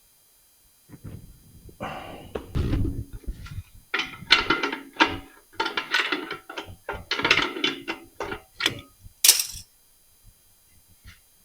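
Irregular metallic clinks, knocks and scraping as small threaded air fittings and hand tools are handled and worked, with a short sharp hissy rasp near the end.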